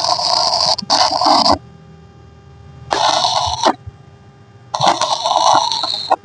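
Electric arc welding on the bike frame: four bursts of crackling, hissing arc, each under a second long, with short pauses between the welds.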